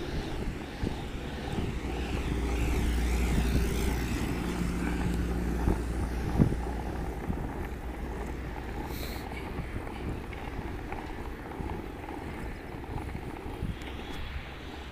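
RipStik casterboard's caster wheels rolling over asphalt: a steady low rumble, loudest a few seconds in and easing off later, with scattered clicks and one sharp knock about six seconds in.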